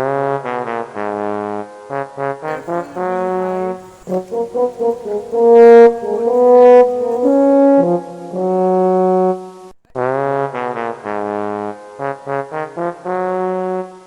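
Background music: a brass melody, trombone-like, of short detached notes and longer held ones, breaking off briefly about ten seconds in before the phrase starts over.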